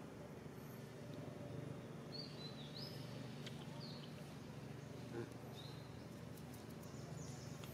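Faint outdoor ambience: a steady low hum with a few short, high-pitched chirps scattered through it.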